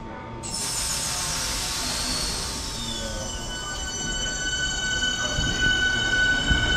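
Southeastern electric multiple-unit train moving out along the platform, its wheels squealing high in several steady tones that start suddenly about half a second in. One tone slides lower before settling, and the running noise grows louder toward the end.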